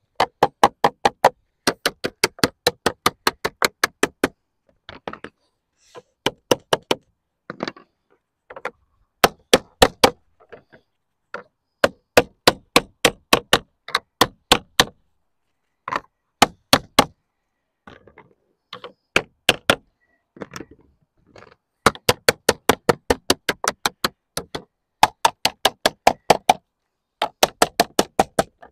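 Plastic lead dresser beating sheet lead to dress it into shape: quick runs of sharp knocks, several a second, lasting a second or two each, with short pauses between runs.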